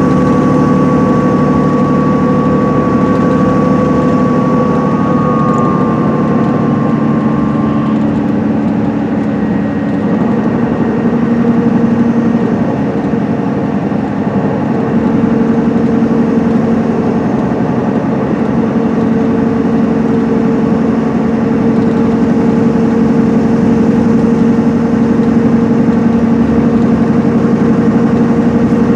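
Cabin sound of an MCI D4500CL coach cruising on the freeway: its Cummins ISM inline-six diesel runs with a steady drone over road noise. A high whine fades out about eight seconds in, and the lower engine tones shift slightly at about ten seconds.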